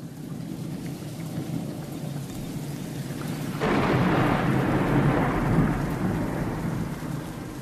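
Thunderstorm: steady rain, with a clap of thunder about three and a half seconds in that rumbles loudly for a couple of seconds and slowly fades.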